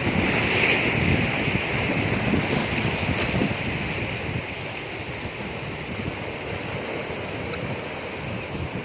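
Sea waves washing on a shore, with wind gusting on the microphone; somewhat louder in the first few seconds, then easing.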